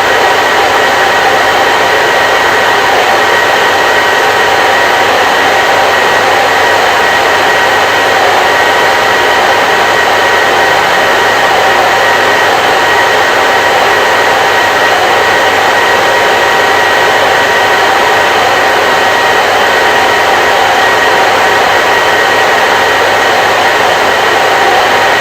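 Hair dryer running continuously, a loud, even rush of air with a faint steady motor whine in it.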